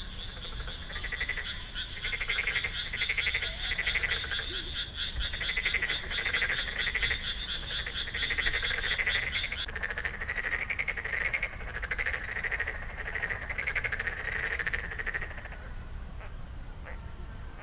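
Chorus of frogs calling: many overlapping, rapidly pulsed croaks, with a higher rattling call that drops out about ten seconds in, and the chorus thinning near the end. A faint steady high tone runs underneath.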